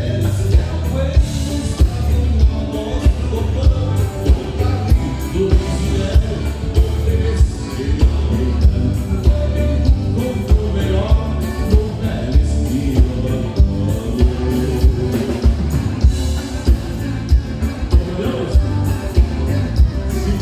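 Live band playing gaúcho dance music, loud, with a steady kick-drum beat of about two strikes a second.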